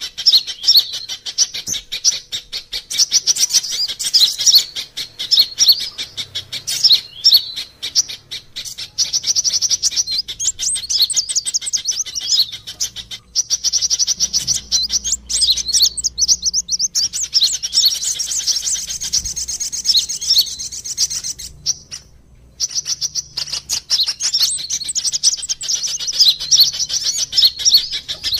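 Sunbirds calling: fast, high-pitched chirps and trills from several birds overlapping almost without pause, played as a lure call to draw sunbirds in. There is a brief break about three quarters of the way through.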